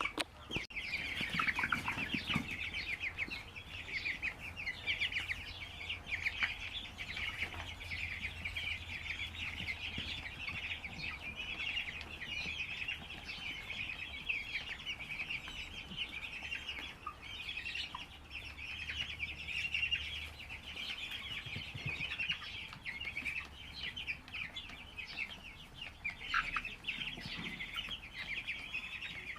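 A large flock of broiler chickens calling all at once: a constant dense chorus of high peeps and clucks with no single bird standing out.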